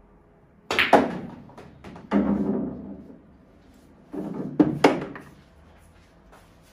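A pool shot: the cue tip strikes, and the cue ball hits the object ball with a sharp clack about a second in. Balls then roll and knock around the table, with a rumble and two more sharp clacks later on.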